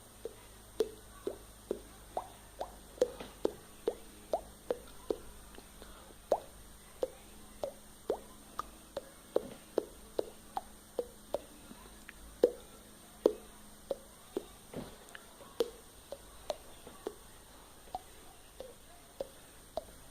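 Mouth-made water-drop sound: a long run of short, hollow plops, about two a second, each at a slightly different pitch.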